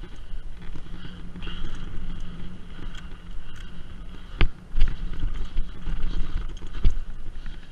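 Mountain bike rolling fast down a dirt trail: tyres running over packed dirt and loose stones with the bike rattling and wind on the microphone. Sharp knocks about four and a half and seven seconds in as the bike hits bumps.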